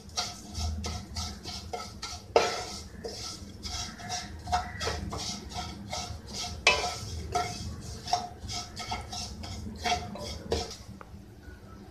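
A spatula stirring and scraping vermicelli around a nonstick kadai as it roasts in ghee over a low flame: irregular scrapes and taps against the pan, with a couple of louder knocks.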